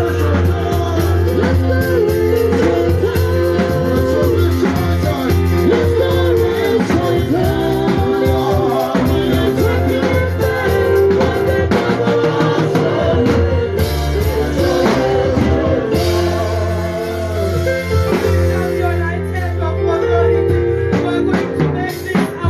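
Worship music with singing over a band accompaniment with sustained bass.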